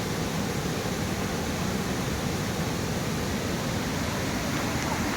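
Waterfall rushing, a steady even roar of falling water with no break.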